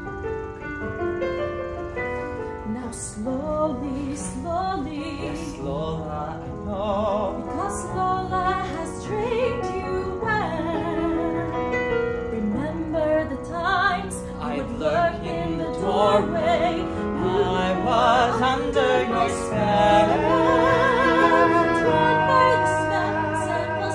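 A song with digital piano accompaniment. A woman's singing voice with vibrato joins a few seconds in, and the music grows louder toward the end.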